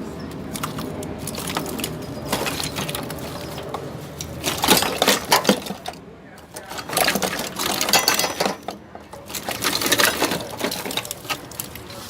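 Wiring harness and its plastic connectors being worked loose and pulled out of a car's engine bay: irregular clattering, clicks and scraping in bursts, busiest in the second half.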